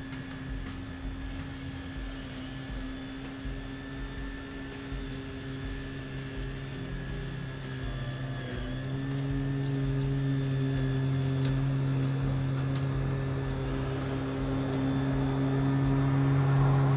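Electric push mower running as it cuts grass, a steady hum. The pitch dips briefly about halfway through, then the hum grows louder as the mower comes close and is loudest near the end.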